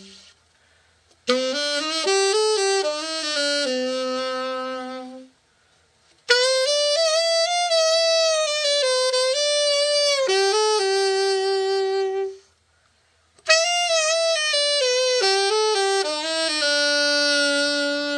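Conn 20M alto saxophone played in three short melodic phrases, each ending on a held note, as a play test after a full overhaul.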